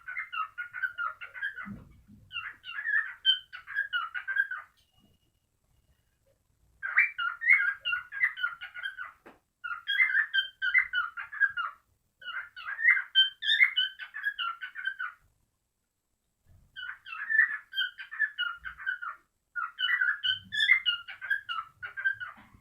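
Cockatiel song: rapid warbling chirps and whistles in about seven phrases of two to three seconds each, with short pauses between them. This is the breeding song played to stir cockatiels to mate.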